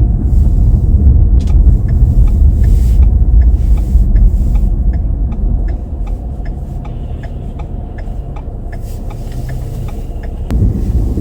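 Car heard from inside the cabin while driving: a steady low rumble of engine and tyres on the road that eases off about halfway as the car slows, then picks up again near the end. A light, regular ticking runs through it.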